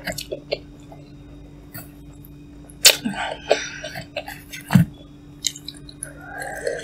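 Chewing and eating cup noodles close to the microphone: wet mouth sounds with scattered sharp clicks, a louder noisy burst about three seconds in, and a steady low hum underneath.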